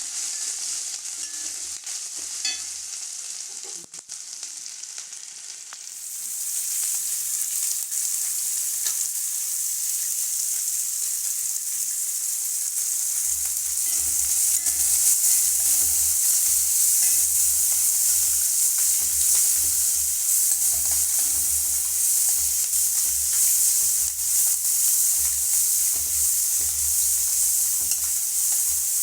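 Food sizzling as it fries in hot oil in a pan. The sizzle grows much louder about six seconds in and then keeps up steadily.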